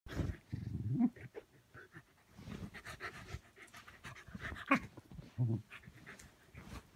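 Shetland sheepdog panting in short irregular bursts while it burrows and plays in a bed comforter, with the fabric rustling; one brief louder sound comes about two-thirds in.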